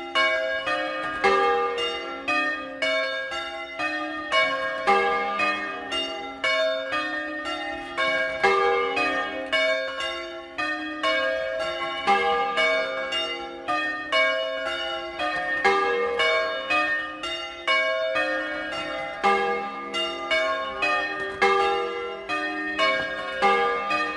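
A set of six tuned church bells cast by Francesco De Poli in 1994 (A♭3 to F4, a major-sixth tuning), hung in a portable wooden frame and swung by ropes in the Bolognese doppio style. The strikes follow one another quickly and overlap into a continuous peal.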